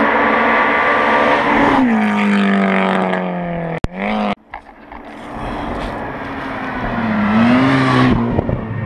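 Rally cars passing at speed, each engine note falling in pitch as it goes by, with a brief break in the sound about four seconds in. Near the end a Mitsubishi Lancer Evolution X's turbocharged four-cylinder rises and then drops as it passes close.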